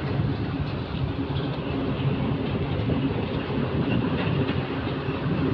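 Steady rumbling roar of fast-flowing floodwater on a swollen river.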